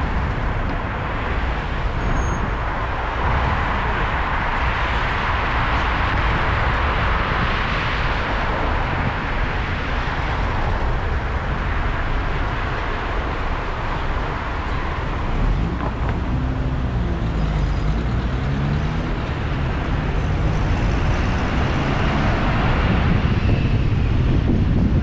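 A car driving in city traffic: steady road and engine noise with a rumble of tyres and passing traffic. About two-thirds of the way through, an engine's pitch wavers up and down for a few seconds.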